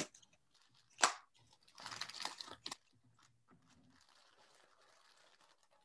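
A paper package being opened without ripping it: one sharp click about a second in, then about a second of crunchy paper crackling, followed by faint rustling as it is handled.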